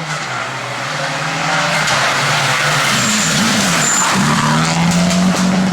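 Rally car approaching at speed, its engine getting louder; the engine note dips and rises in quick changes about midway, then holds high, over a rush of tyre noise.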